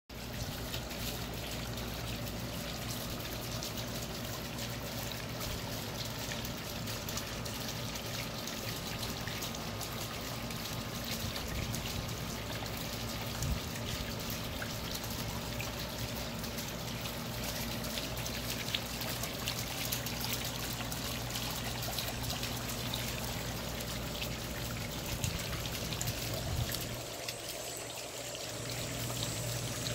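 Basalt column fountain running: water bubbling up out of the polished tops of several columns and trickling down their sides into the river-rock bed, a steady splashing trickle.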